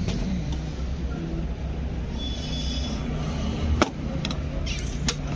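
A scooter's seat slammed shut with a single sharp thud about four seconds in, over a steady low rumble of engines running close by. A few lighter clicks follow near the end.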